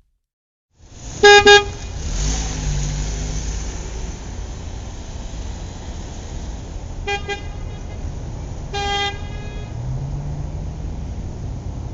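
Road traffic running steadily, with a car horn honking: two quick toots about a second in, a short toot around seven seconds and a longer one around nine seconds.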